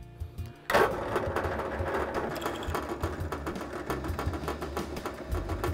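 Bench pillar drill boring a hole through a steel knife blank and the handle material taped to it, the twist bit cutting with a dense, rapid clicking chatter. It starts abruptly just under a second in and then runs steadily.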